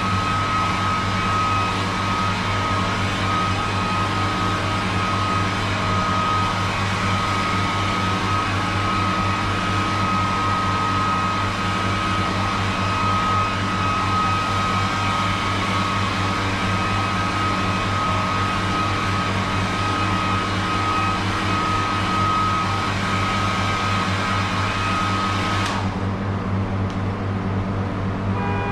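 Paint spray gun spraying: a steady rush of air with a thin whistle over a low machine hum. Near the end the air hiss and whistle cut off suddenly as the trigger is released, leaving only the hum.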